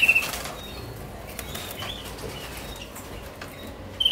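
Waterslager canaries chirping in short high calls, a loud one at the start and another near the end with fainter ones between. There is a brief rustle at the start.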